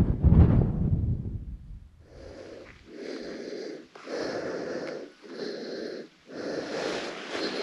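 A loud low rumble on the microphone for the first second or so, then a person breathing hard close to the microphone, one heavy breath about every second.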